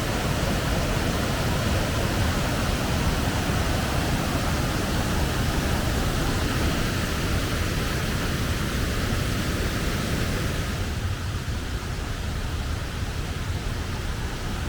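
Waterfall in flood after heavy rain: a steady, loud rush of falling water, easing slightly about eleven seconds in.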